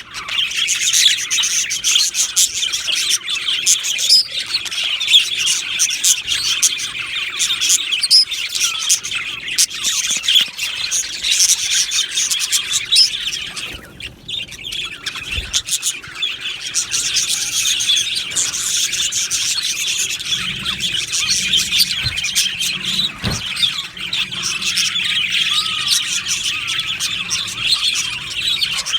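A flock of budgerigars chattering and warbling, many birds at once, with a brief lull about halfway through.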